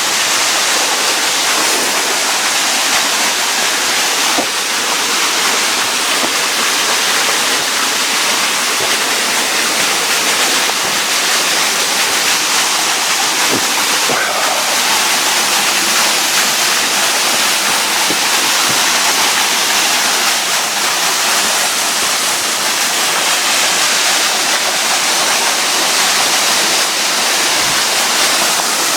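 Waterfall's water rushing and splashing steadily.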